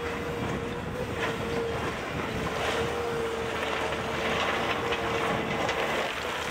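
Heavy construction machine's diesel engine running steadily under load, with a continuous high whine over the rough engine noise.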